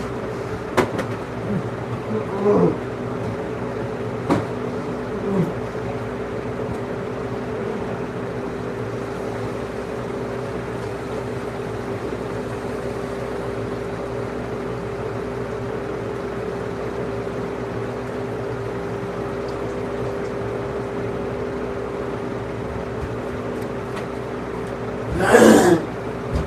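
A man gagging and retching: short, faint heaves in the first few seconds and one louder, longer retch near the end, over a steady mechanical hum.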